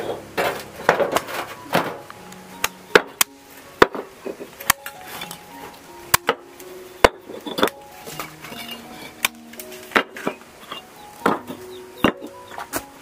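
Background music with many sharp knocks at irregular intervals, about one or two a second, from hand work such as chopping or hammering.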